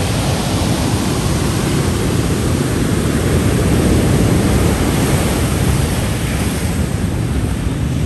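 Ocean surf breaking and washing in foam over a pebble beach and rocks: a steady, loud rush of whitewater.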